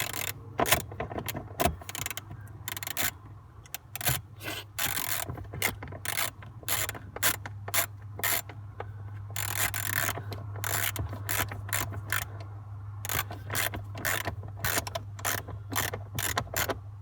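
Hand ratchet with a 10 mm socket clicking in short, irregular runs while backing out a stubborn screw from a steering-column cover, over a steady low hum.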